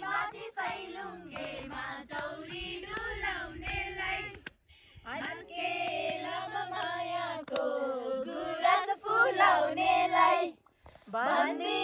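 A group of women singing a song together in high voices, in phrases broken by short pauses about four and a half and ten and a half seconds in, with a few hand claps.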